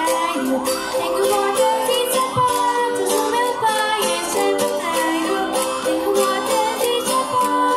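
Folk group playing live: a small strummed guitar and voices singing over a steady, regular beat.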